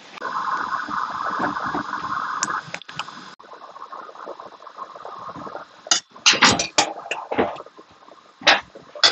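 Chicken and whole spices bubbling and hissing in liquid in a cooking pot, loudest for the first few seconds. A metal slotted spatula clanks sharply against the pot in a quick cluster about six seconds in, and twice more near the end.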